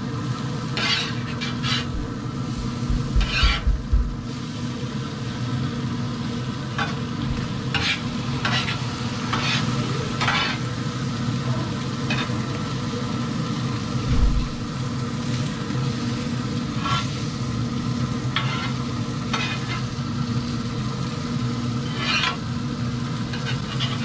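Shrimp sizzling on the hot grate of a pellet grill as they are laid out with metal tongs, with scattered sharp clicks of the tongs on the grate over a steady low hum. Two low thumps come about three seconds in and again around fourteen seconds.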